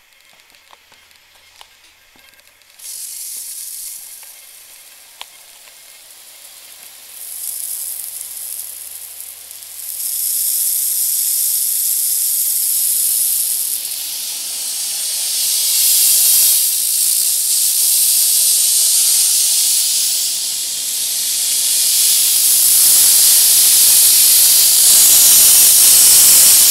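Lawn sprinkler heads hissing as compressed air blows the last water out of the underground lines as a fine mist, in a winterizing blowout. The hiss starts about three seconds in and grows louder in steps, loudest near the end.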